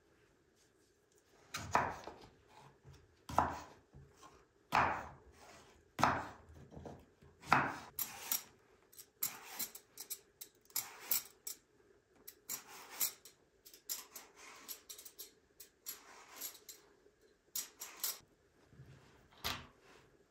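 Metal vegetable peeler scraping the skin off eggplants in a series of short strokes over a wooden cutting board. The first strokes are the loudest, about one every second and a half; from about eight seconds in they come faster and lighter.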